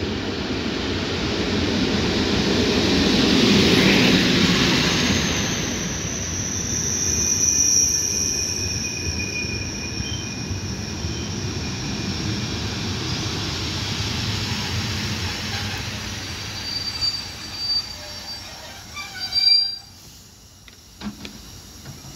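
EU07 electric locomotive and its passenger coaches rolling past while braking, with a high squeal from the wheels and brakes. The rolling noise dies away near the end as the train comes to a stop.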